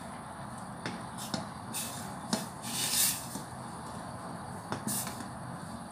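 A black ladle stirring and scooping thin agar-agar mixture in a stainless steel saucepan, with a few light clicks against the pan and short splashing hisses as liquid pours back off the ladle, over a steady low hiss.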